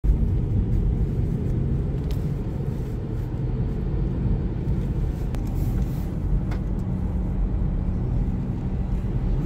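Steady low rumble of a car driving along a wet road, heard from inside the cabin: tyre and road noise with the engine, and a few faint clicks.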